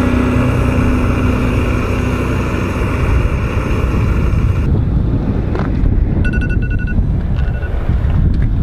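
Jetboil camping stove's gas burner running with a steady noise, which stops about halfway through, leaving an outdoor rumble. Near the end comes a short run of quick electronic beeps.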